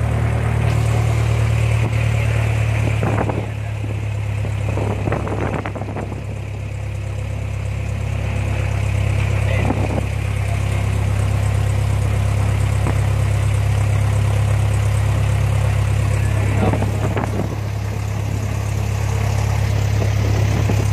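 Cessna 172's piston engine and propeller running steadily on the ground during a pre-flight run-up, a low drone heard from inside the cockpit, easing slightly in loudness a few seconds in and again near the end.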